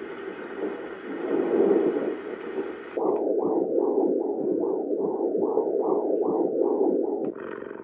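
A baby white-noise sound machine playing its built-in sounds through its small speaker. A steady hiss cuts off about three seconds in and another track starts, a rhythmic pulsing of about three rising swoops a second, which switches again just before the end.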